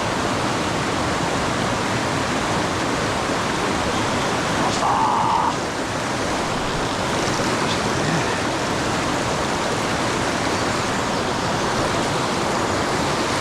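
Swollen mountain stream rushing steadily, running high with typhoon runoff. A brief sharper, tone-like sound comes about five seconds in.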